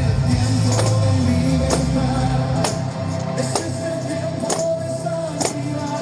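Worship music playing, with a sharp percussion hit on the beat about once a second over held notes; the bass drops away about halfway through.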